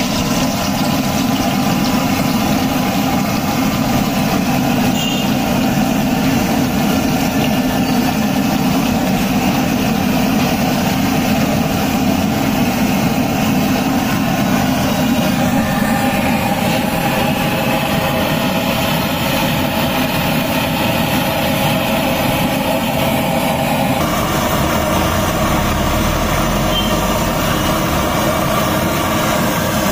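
Dal vadas deep-frying in a large iron kadai of hot oil, sizzling under a steady low roar that does not let up.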